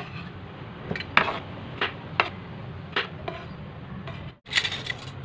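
Kitchen knife cutting through peeled mango and tapping the cutting board, a string of sharp, irregular taps about a second apart. A short noisier scrape comes near the end.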